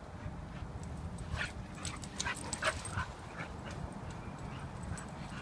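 Dogs playing, with a quick run of short, high yips and whimpers about one and a half to three seconds in.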